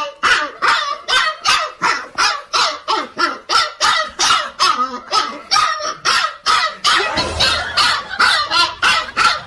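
An animal calling over and over in a steady rhythm, about three short, pitched calls a second, without a break.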